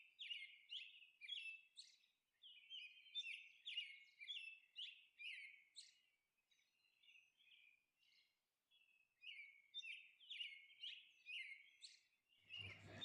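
Faint bird chirping: a string of short, quick chirps that falls quiet for a few seconds midway, then resumes.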